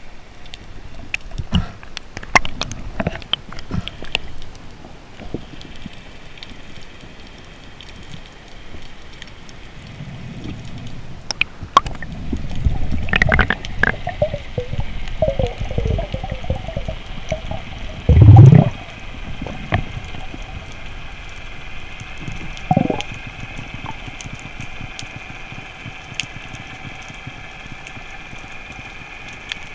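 Water sloshing and bubbling, with scattered sharp clicks and a louder low rumble through the middle. About two-thirds of the way through comes one loud, short gurgling surge of bubbles.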